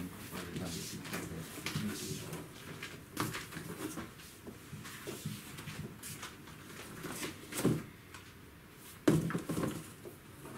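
A laptop and its packaging being handled during unboxing: a run of clicks, knocks and rustles, with two louder knocks in the second half.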